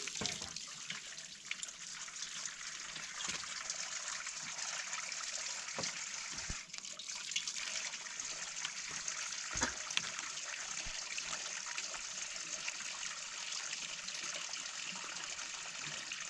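Steady running or trickling water, with a few light knocks.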